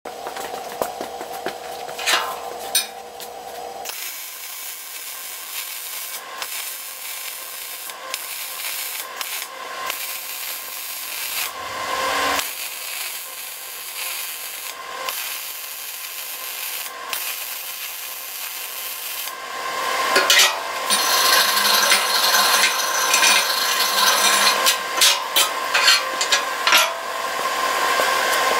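Arc welding on steel plate: the welding arc crackling and sizzling steadily, with sharp spatter pops, louder from about two-thirds of the way in.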